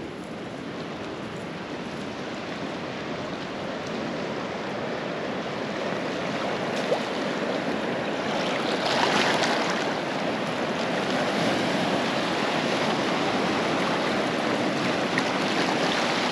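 Sea waves washing over shoreline rocks, a steady rushing that grows gradually louder, with a bigger surge about nine seconds in.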